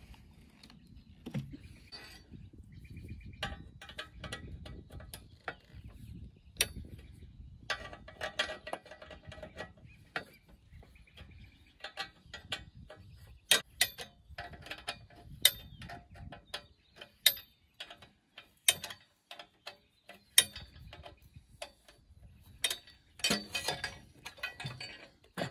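Metal rails and brackets of an Alaskan-style chainsaw mill frame being handled and taken apart: irregular metal clinks and rattles, with several sharp ringing clanks near the middle.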